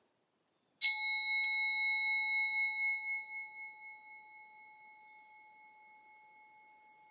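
Small singing bowl struck once about a second in, then ringing out. Several steady tones sound together; the highest fade within a couple of seconds while the lowest lingers and slowly dies away over several seconds.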